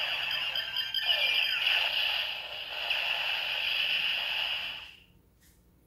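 Bandai DX Ziku Driver toy belt, with the Fourze Ridewatch loaded, playing an electronic rushing, hissing sound effect with sweeping tones through its small speaker, fading out about five seconds in.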